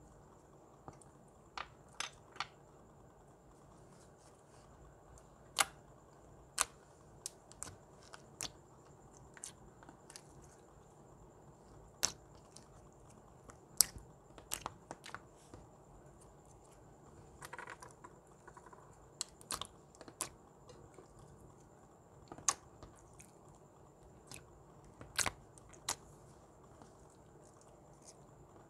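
Clear glitter slime being pressed and poked by hand, giving sharp, irregular pops and clicks, a couple of dozen spread unevenly, over a faint steady hiss.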